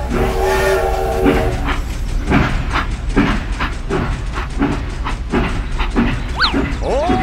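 Battery-powered toy steam locomotive running on plastic track: its whistle sounds a held chord for the first second and a half, then it chugs along in a steady beat of about two and a half strokes a second over a low motor hum. A couple of short gliding squeaks come near the end.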